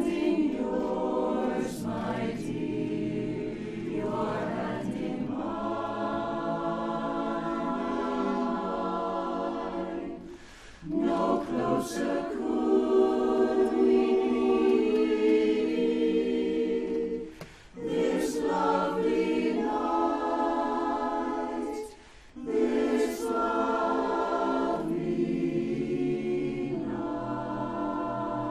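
Mixed-voice barbershop chorus, men and women together, singing a cappella in close four-part harmony. The chords are held, with brief breaks between phrases, three times.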